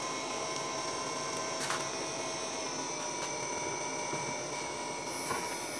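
Homemade hot air gun running: its small DC fan whirs steadily with a thin motor whine and a hiss of blown air. There are a couple of faint clicks.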